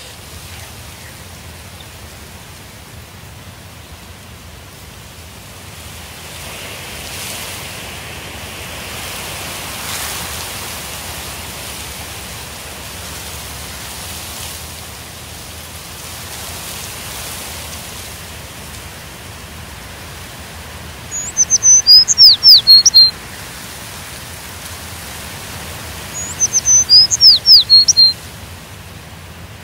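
Wind through leafy trees making a steady rustling hiss that swells for a while and eases off. Near the end a songbird sings twice, each time a short burst of quick, falling high whistles, louder than the wind.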